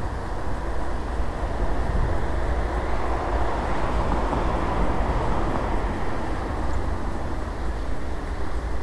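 Wind rushing over the microphone and road rumble from riding, a steady noise that swells for a few seconds midway.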